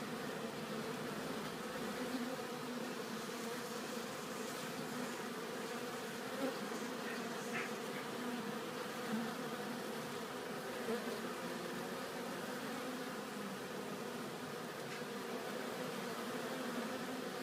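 A crowd of honeybees buzzing at the hive entrance: a steady, even hum of many wings, with a few brief louder swells.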